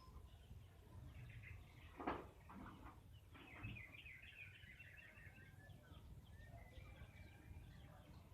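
Faint bird chirping over low background rumble, with one short, sharper sound about two seconds in.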